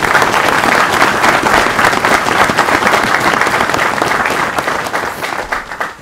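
Audience applauding, thinning out and stopping near the end.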